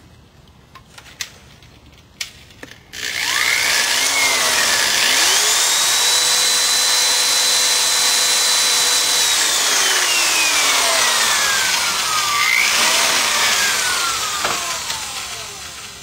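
Corded electric drill boring holes through the bottom of an aluminium drink can. The motor whine speeds up about three seconds in and holds steady, then slows down. It picks up again briefly and winds down near the end.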